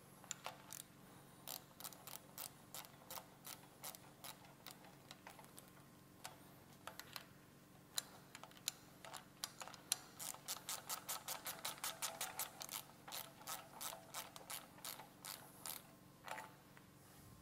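Ratchet wrench clicking in quick runs as it tightens the rim lock nut on a dirt bike wheel. The clicks come fastest and most densely about ten seconds in.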